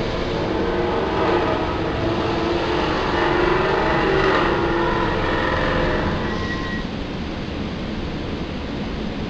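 SEPTA Silverliner IV electric multiple-unit commuter train pulling out of the station, its electric motors humming. The hum is loudest a few seconds in and fades after about six seconds, leaving a steady rushing noise.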